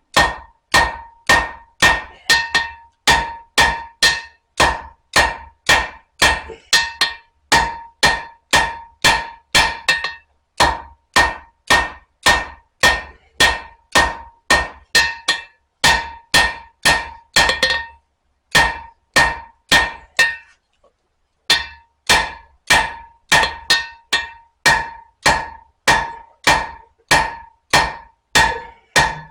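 Blacksmith's hand hammer striking hot spring steel on an anvil in a steady rhythm of about two blows a second, each blow leaving a ringing tone: drawing out the knife's handle section. The hammering stops for about three seconds roughly two-thirds of the way through, then resumes.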